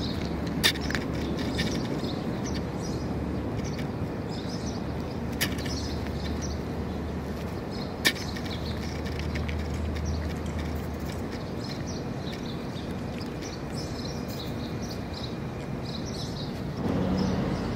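A cat crunching dry kibble, small irregular crunches, with three sharp clicks, over a steady low background hum. The background gets louder just before the end.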